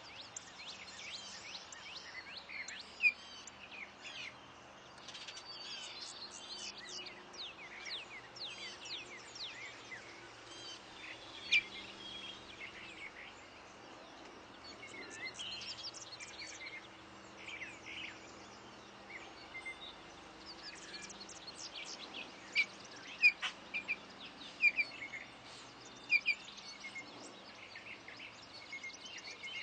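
Songbirds chirping and calling: many short, sharp chirps throughout, with a few louder calls standing out about a third of the way in and again in the last third, over faint steady background noise.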